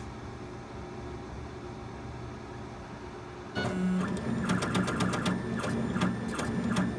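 A 40-watt laser engraver starts its engraving run about halfway through: the gantry's stepper motors buzz and click as the head sweeps rapidly back and forth, several strokes a second, after a low steady hum.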